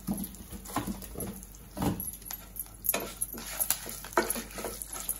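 Wooden spatula stirring and scraping through a tempering of spices in oil in a non-stick kadai: a run of irregular knocks and scrapes, with a few dull bumps early on and busier strokes in the second half.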